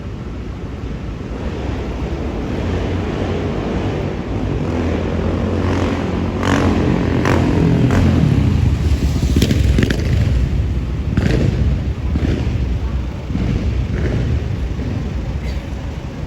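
Manhattan street traffic: a low engine rumble swells and passes through the middle, with several sharp knocks and clicks over it.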